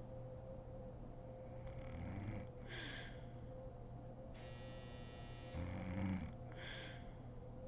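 A woman snoring in her sleep: a low rumbling snore on each breath, followed by a breathy hiss, twice, about three and a half seconds apart. A faint steady hum runs underneath.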